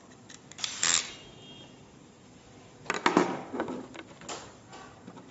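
Sharp clicks and taps of small plastic and metal parts being handled while a security camera's circuit board and housing are worked on with a screwdriver. They come in two clusters, about a second in and again about three seconds in.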